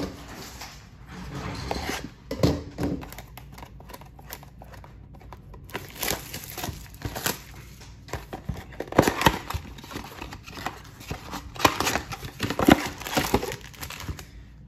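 A cardboard Panini Select Mega Box of football cards being torn open by hand: irregular bursts of tearing, crinkling and rustling with sharp clicks, busiest in the second half.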